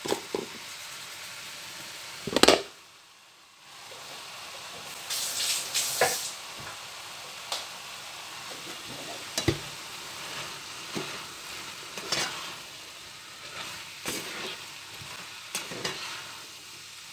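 Fried noodles sizzling in a frying pan, with scattered scrapes and taps of a spatula as they are stirred. The sizzle dips briefly about three seconds in.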